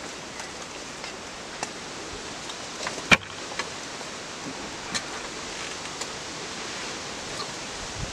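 Knife and fork cutting steak on a wooden board: a series of sharp clicks and taps of the cutlery against the wood, the loudest about three seconds in, over a steady outdoor hiss like wind in leaves.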